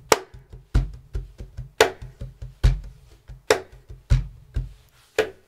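Cajon played with bare hands: a steady groove of deep bass tones and light snare slaps, with soft fingertip ghost notes filling in between. The playing stops about five seconds in.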